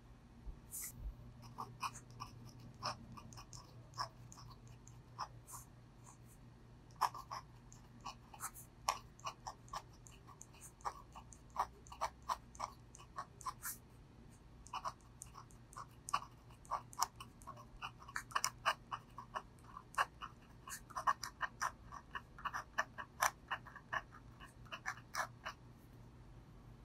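Brause Steno index-finger steel dip-pen nib scratching across paper while writing Korean by hand: a run of short, quick scratches and ticks, one for each pen stroke, thickest in the last third.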